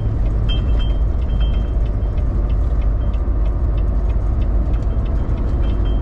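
Inside a semi truck's cab while driving at low speed: steady low engine and road rumble, with faint light ticks throughout.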